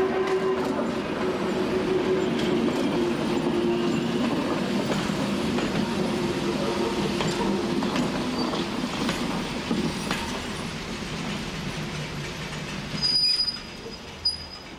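Old electric railcar (Trossinger Eisenbahn T3, built 1938 by Maschinenfabrik Esslingen) towing the ET 91 'Glass Train' slowly into a station: a motor whine that slowly falls in pitch and fades as the train slows, over the rumble of wheels on the rails. About 13 seconds in, a brief high squeal as the train comes to a stop.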